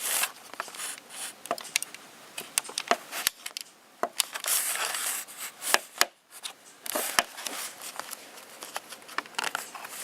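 Storm wind rising and falling in gusts, with many irregular sharp clicks and crackles over it.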